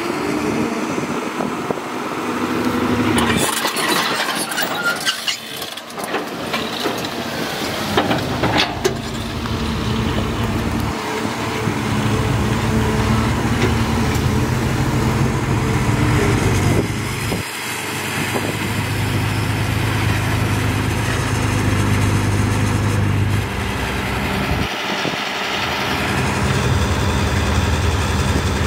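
Caterpillar 320C excavator's six-cylinder diesel engine working under hydraulic load as it digs and swings, its note rising and falling with the work and dipping briefly twice in the second half. Rattling and scraping of soil and clods about three to nine seconds in.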